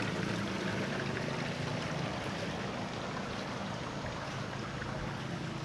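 Steady rushing noise of running water with a low, steady hum underneath.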